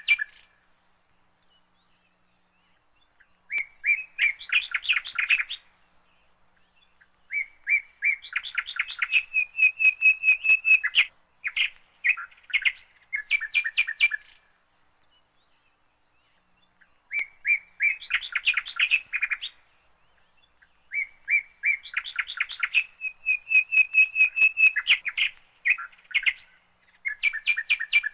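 A songbird singing in phrases of rapid chirps and trills with short pauses between them, the same sequence of phrases repeating about every 13 to 14 seconds.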